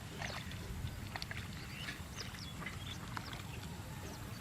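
Small birds chirping, many short quick calls throughout, over a steady low rumble.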